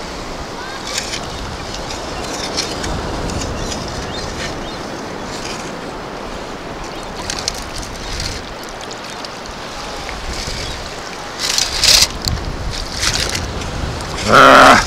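Seawater sloshing around the legs in the shallows as a long-handled perforated metal sand scoop is driven into the sandy bottom and lifted out, sandy water draining through its holes. A few short knocks and splashes stand out, the loudest two near the end.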